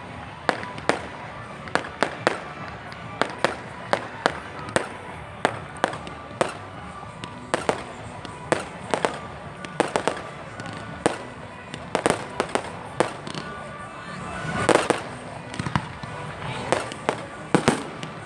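Fireworks display: a rapid, irregular series of sharp bangs as aerial shells burst, several a second, with a longer, louder spell of crackling about three-quarters of the way through.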